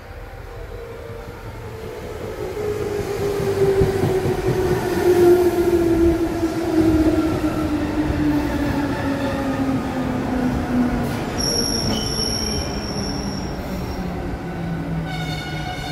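JR West Series 221 electric train pulling in and braking to a stop. Its whine falls steadily in pitch as it slows, over a low rumble, and a thin high brake squeal sounds for about two seconds near the end.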